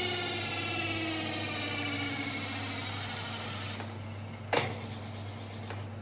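Spin dryer of a Hotpoint Supermatic De Luxe 9414 twin tub slowing down, its whine falling steadily in pitch until it dies away a little under four seconds in. A single sharp knock follows about half a second later.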